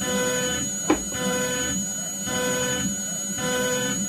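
CNC 3040 router milling an adaptive pocket in a metal block: the spindle runs with a steady high whine while the end mill cuts, and the cutting sound and a mid-pitched motor tone change in a cycle that repeats about once a second as the toolpath loops. A single sharp tick about a second in.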